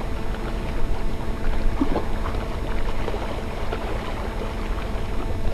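Steady wind noise on the microphone with sea water washing against the rocks, with faint scattered small splashes.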